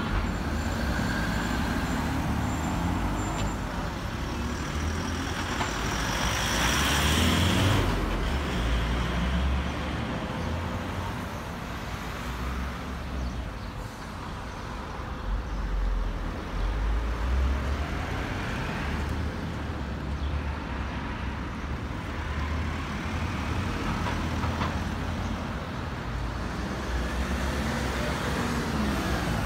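Road traffic on a town street: car engines and tyres running past, with a steady rumble throughout. The traffic is loudest about seven seconds in, as a vehicle goes by close.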